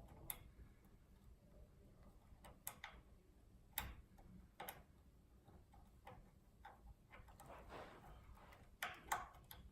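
Faint, irregular clicks from picking a Schlage pin-tumbler cylinder: the hook pick lifting and setting pins under tension as the plug moves toward a false set. About half a dozen sharp clicks come at uneven intervals, with two close together near the end.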